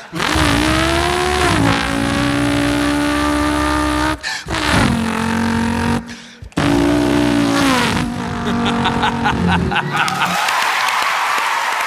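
Car engine sounds revving up and holding in three runs, cut off briefly between them. Applause begins near the end.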